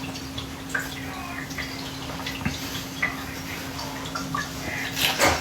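Cat water fountain running: a steady low pump hum under faint dripping and trickling, with scattered small clicks and a brief louder noise near the end.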